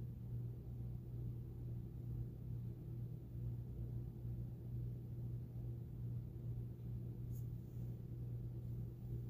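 A steady low hum of background noise with nothing else happening, and one faint tick about seven seconds in.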